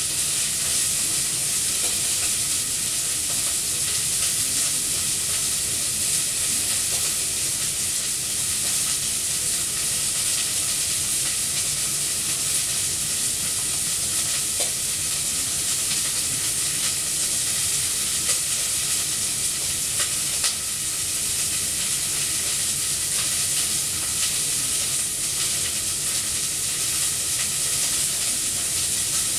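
A steady high hiss, with a couple of faint knocks partway through.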